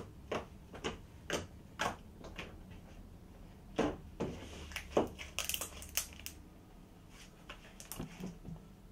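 Homemade glue-and-borax glitter slime being squished, poked and kneaded with the fingers, giving irregular sticky clicks and pops in several clusters.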